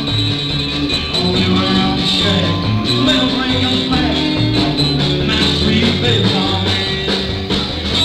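A live country-rock band playing a song, with electric guitar over bass.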